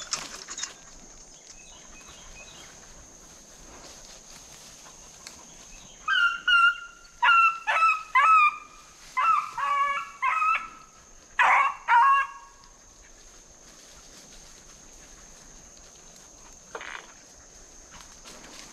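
A beagle baying on a fresh deer track: a run of about ten barks over some six seconds, starting about six seconds in, each call sliding down in pitch.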